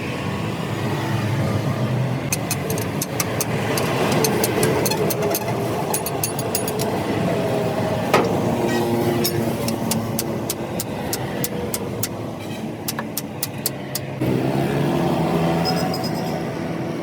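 A motor vehicle engine running steadily, with runs of sharp clicks and one louder knock about eight seconds in. The engine note changes about fourteen seconds in.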